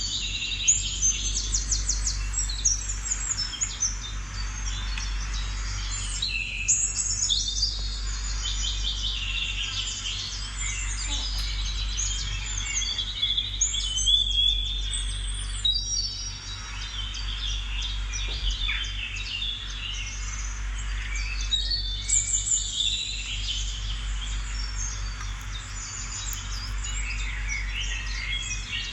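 A dense chorus of many small birds chirping and twittering without a break, over a steady low hum.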